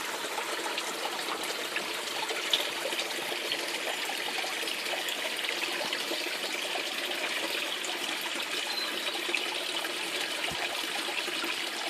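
Garden water feature with water running and trickling steadily.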